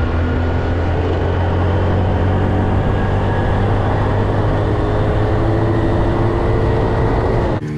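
A vehicle engine running steadily: a constant low hum under a broad rush of noise. It cuts off abruptly near the end.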